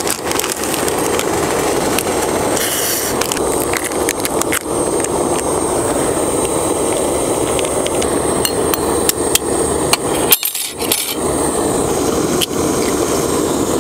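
SOTO ST-310 gas stove burner running under a mess tin of boiling water, a steady rushing noise. Over it come scattered clicks, crinkles and taps from a ramen packet being handled and noodles dropped into the tin, with taps near the end as an egg is cracked against it.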